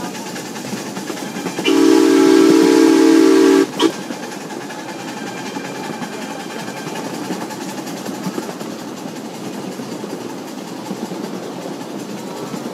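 Live steam locomotive's whistle blowing one loud blast of about two seconds, a chord of several tones, then a brief second toot. Underneath, the ride-on train runs steadily along the track with a rolling clatter.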